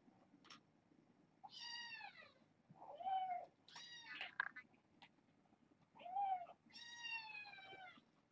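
Kitten meowing, about five high-pitched meows in a row, the first and last drawn out and falling in pitch.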